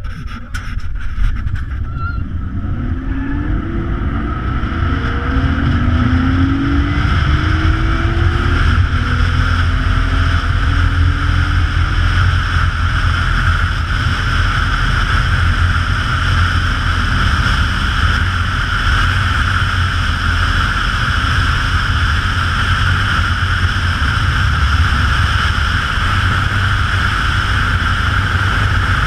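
Zip-wire trolley running down the steel cable at high speed, a steady high whine over heavy wind buffeting on the camera microphone. A few clicks come as it leaves the platform, then rising tones and growing loudness over the first several seconds as it picks up speed.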